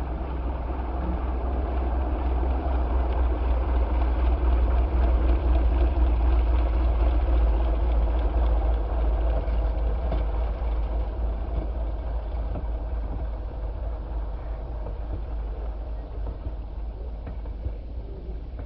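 Moki radial engine of a giant-scale RC P-47 Thunderbolt running steadily, growing louder over the first few seconds and then slowly fading.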